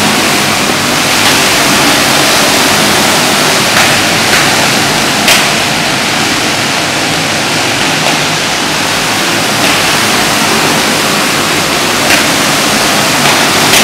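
Several racing karts' small engines running hard around an indoor dirt oval, blending into a loud, dense, steady roar. A few sharp clicks cut through it.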